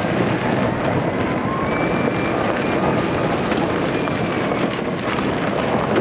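A 36-volt EZ-GO electric golf cart on its new PDS drive, rolling over gravel: a steady noise of tyres on stones and wind on the microphone, with scattered small clicks and a faint whine that rises and falls.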